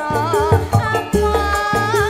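Campursari band playing: a wavering sustained melody line over a repeating bass line and quick percussion.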